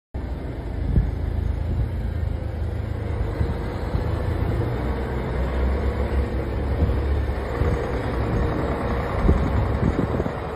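Steady low rumble of road and engine noise from a vehicle driving along a highway, with a couple of brief louder knocks.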